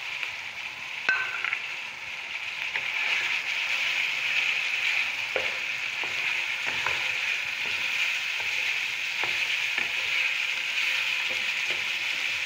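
Chicken and freshly added chopped tomatoes sizzling in hot oil in a pan, stirred with a wooden spoon that knocks against the pan now and then. The sizzle grows louder about two seconds in.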